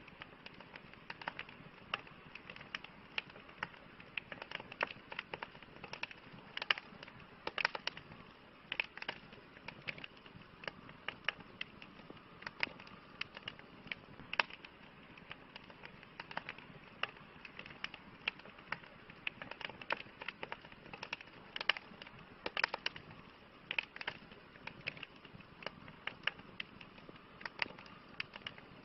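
Wood campfire crackling: irregular sharp pops and snaps of burning logs, a few a second, over a faint soft hiss.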